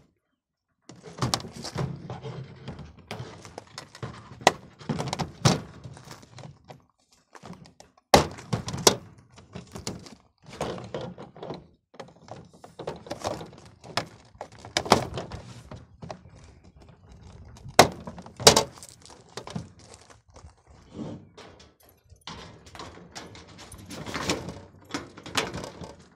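Hard plastic lids and egg trays of a Gaun roll-out chicken nesting box being handled and forced together: repeated knocks and clattering, with a few loud sharp snaps as the thick-barred lids are pressed on, two pairs of them about a third and two-thirds of the way through.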